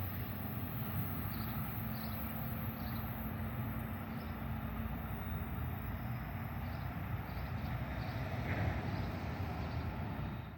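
A train running with a steady low rumble, with a few faint high chirps above it. The sound cuts off suddenly near the end.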